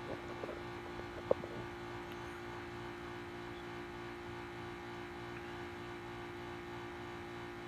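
A man's single short hiccup about a second in, over a steady low hum.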